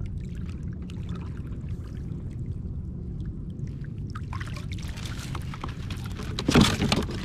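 Water sloshing and trickling against a kayak hull, over a steady low rumble, with a louder burst of splashing near the end.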